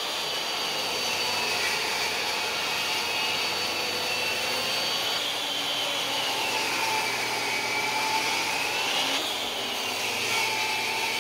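DeWalt DWE7491 table saw running, cutting a glued-up walnut and hard maple panel into strips on a crosscut sled. A steady rushing noise with a high whine that dips in pitch and rises again partway through.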